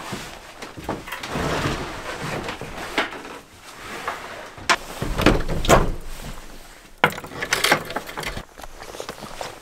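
Wooden hut door being pulled shut and fastened: scraping and knocking of wood, with the heaviest thuds about five to six seconds in and sharper knocks a couple of seconds later.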